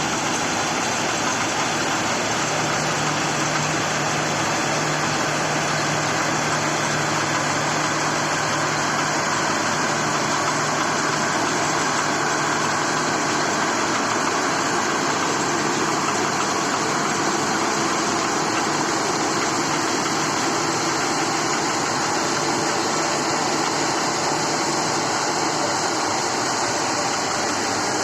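John Deere rice combine harvester running steadily, its engine and machinery making a loud, even noise, with a low hum that sets in about two seconds in and fades near the end.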